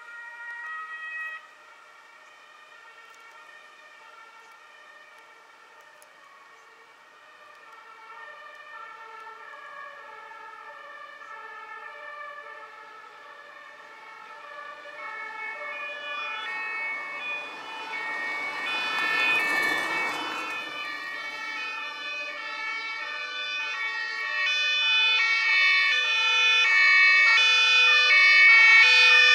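Two-tone German emergency-vehicle sirens (Martinshorn) from an ambulance and following fire-service vehicles, rising in loudness as they approach on a call. About twenty seconds in a vehicle passes close with a rush of tyre and engine noise. Near the end several two-tone sirens overlap at their loudest, then cut off suddenly.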